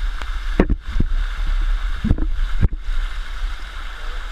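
Water of a cascading waterfall rushing steadily over rock, with a few short knocks and bumps near the microphone.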